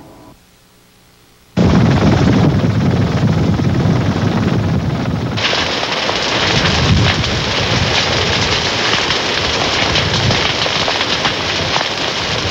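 Sugarcane field burning: dense crackling and popping of the fire. It starts suddenly after a second and a half of faint hum and grows harsher about five seconds in.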